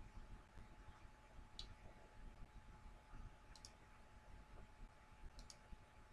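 Three faint computer mouse clicks over near-silent room tone: one single click, then two quick pairs of clicks about two seconds apart. A faint steady whine runs underneath.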